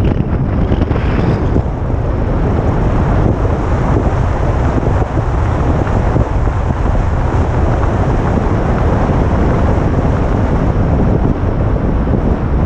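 Heavy wind buffeting the camera's microphone on a moving vehicle: a loud, steady, rumbling noise that covers everything else.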